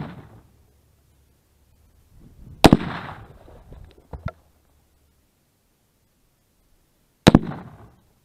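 Shots hitting pumpkins: two sharp, loud cracks, one about two and a half seconds in and one about seven seconds in, each trailing off over half a second or so as a pumpkin is blown apart. A couple of small clicks follow the first shot.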